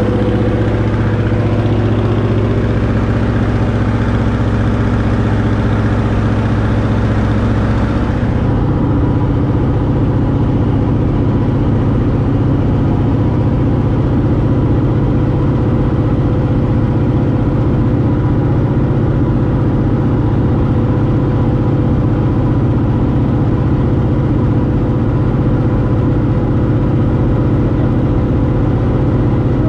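Antonov An-2's nine-cylinder radial piston engine and propeller droning steadily in climb, heard from inside the cabin. About eight seconds in the tone changes abruptly, with less hiss, and then holds steady.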